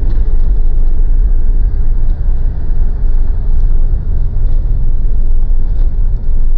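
Mitsubishi Pajero's diesel engine and tyres while driving slowly over fresh snow: a loud, steady low rumble.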